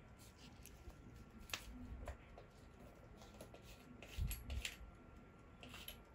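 Faint clicks and scrapes of a wristwatch being handled at its case back, with a dull knock about four seconds in.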